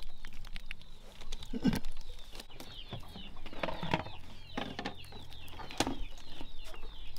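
Chickens clucking, with many short repeated chirps. Scattered soft clicks and rustles come from small fish being picked by hand out of a mosquito net.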